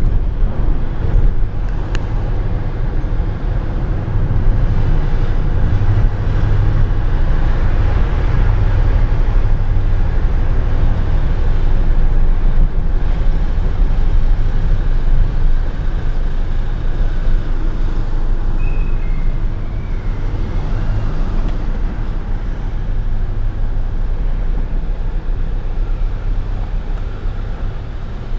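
Van engine and road noise heard from inside the cab: a steady low rumble while driving. A brief high squeak sounds about two-thirds of the way through.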